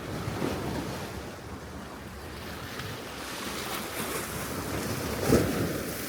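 Wind gusting against the microphone in surging swells, with the strongest gust about five seconds in.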